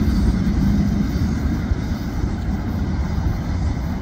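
Cars of a short maintenance-of-way work train rolling past on the rails, a steady low rumble that eases slightly as the train goes by.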